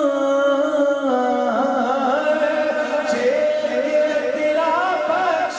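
A man singing a naat in a devotional style: a long held note, then a wavering, ornamented melody from about a second and a half in.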